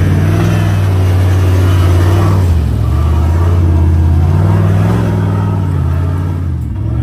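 Off-road vehicle's engine running with the revs rising and falling, easing off about two and a half seconds in and again near the end.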